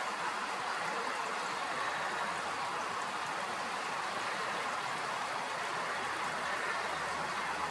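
Shallow stream flowing over stones: a steady, even babble of running water.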